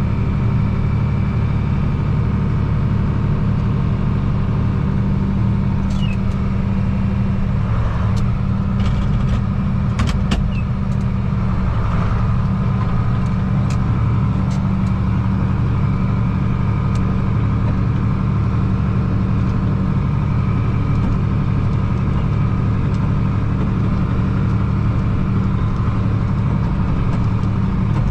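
Farm tractor engine running steadily under load while pulling a manure spreader, heard from inside the cab. A few light clicks and rattles come about six to ten seconds in.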